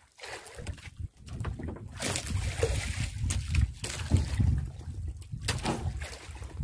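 Strong gusting wind buffeting the microphone, mixed with waves sloshing against the hull of a small outrigger fishing boat. The gusting builds about a second in.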